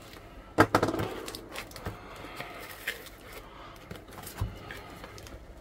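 Heavily taped cardboard parcel being cut and handled with a snap-off utility knife: a burst of scraping and cutting strokes about half a second in, then scattered clicks and a duller knock on the wooden desk about four seconds in.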